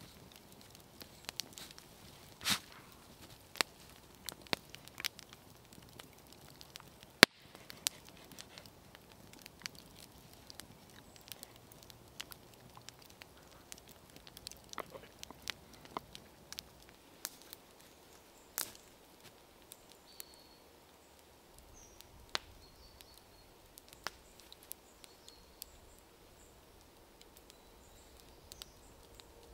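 Wood campfire crackling: scattered, irregular sharp pops and snaps over a quiet background, with one much louder sharp click about seven seconds in.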